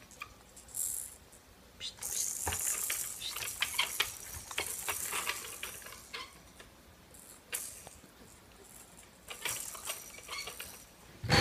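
Infant's plastic rattle toy, beads inside clear balls, shaken and knocked about by small hands: bursts of rattling and clicking on and off, with one louder knock at the very end.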